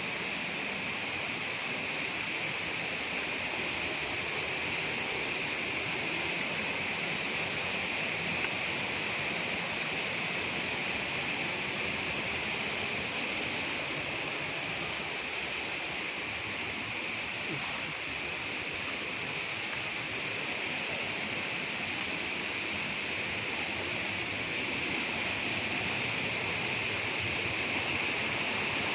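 Tiu Sumbak waterfall's water falling and rushing in a steady, unbroken roar of white noise.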